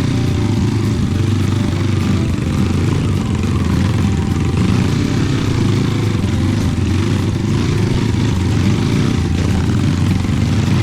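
Trail motorcycle engine running steadily while riding, a constant low engine sound without pauses or sharp changes.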